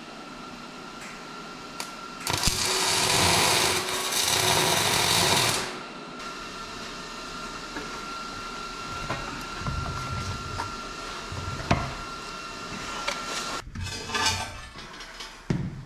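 MIG welder tack-welding steel plate: a loud, even crackling sizzle for about three and a half seconds, then a faint steady hum, and a second, shorter burst of crackle near the end.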